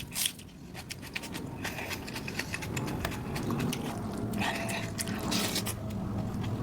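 Close-miked chewing and crunching of food in the mouth, with a sharp crunch at the start and crackly crunches in the second half.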